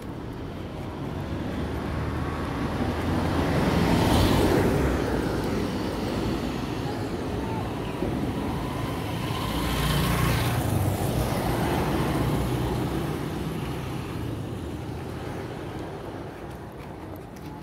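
Road traffic passing: one vehicle goes by, swelling and fading about four seconds in, and another passes around ten to twelve seconds in.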